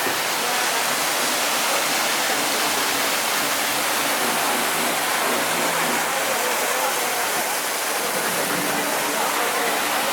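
Steady rush of falling water from a waterfall, with a murmur of crowd voices beneath it.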